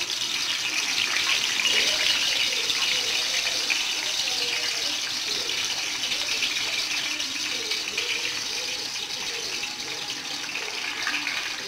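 Freshly sliced raw Nendran banana (plantain) slices sizzling and crackling as they deep-fry in hot oil, loudest about two seconds in and easing slightly after.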